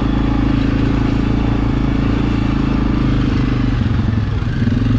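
Single-cylinder ATV engine running steadily under throttle while riding. The throttle eases off briefly about four seconds in, then picks back up.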